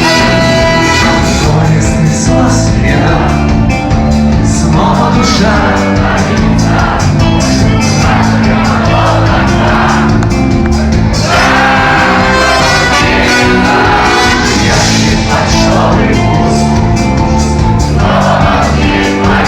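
Live band playing a song through a loud amplified club sound system, with a singer's voice over the band.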